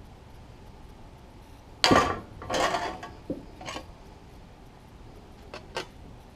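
Sheet-metal tool box parts and tools clanking and clinking as they are handled. A loud clank comes about two seconds in, followed by a rattling clatter and a smaller knock, then two light clicks near the end.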